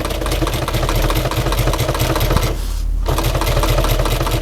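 Sewing machine stitching at a fast, even rate. It stops briefly about two and a half seconds in, then starts stitching again.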